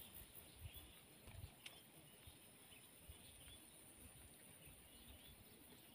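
Near silence: faint open-air swamp ambience with a steady high insect drone, a few faint bird or insect chirps and some soft low thumps in the first second or so.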